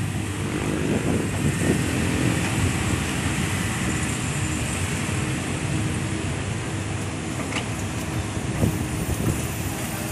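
Heavy diesel machinery running steadily, the engine of an excavator working to load a dump truck, with a few light knocks near the end.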